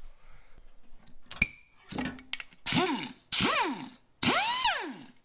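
A power drill cutting into car-body sheet steel at a spot weld, triggered in three short bursts. Its motor whine rises and falls each time over a harsh cutting hiss. A sharp click comes before the bursts.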